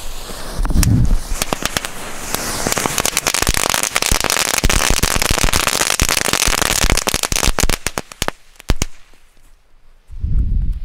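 A bundle of Knatterpeitschen (crackling-whip firecrackers) going off: a dense, rapid crackle of many small bangs for about seven seconds, thinning to a few last pops and stopping about nine seconds in.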